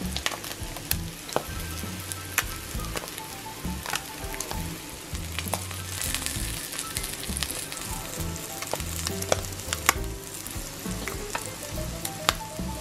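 Whitebait fritters frying in butter in a hot pan: a steady sizzle with frequent sharp crackles and spits.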